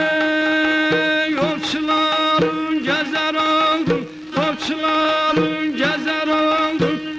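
Azerbaijani ashiq folk music: a long held melody note that breaks into wavering, ornamented turns, over a steady beat of about two strokes a second, with a brief dip about four seconds in.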